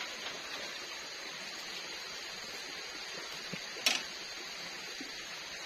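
Split bamboo strips knock against a bamboo platform, with one sharp clack about four seconds in and a few faint knocks around it, over a steady high hum of forest insects.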